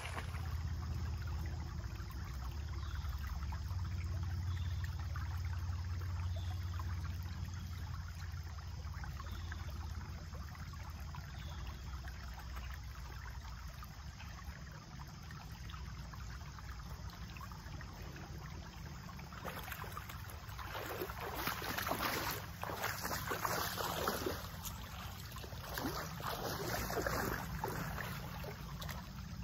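Shallow creek water running through and around two small gold sluice boxes, with a steady low rumble beneath. Louder irregular splashing and sloshing comes in the last third, as water and gravel are worked in the sluices and someone wades.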